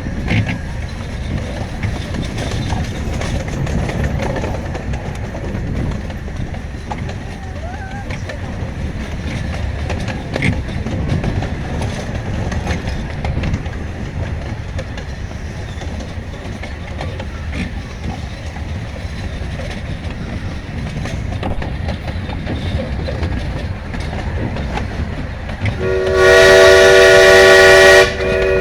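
Steady rumble and clatter of a small steam train running along the track, heard from aboard. Near the end the locomotive's steam whistle sounds a loud, long blast with several tones, breaks off briefly, then starts again.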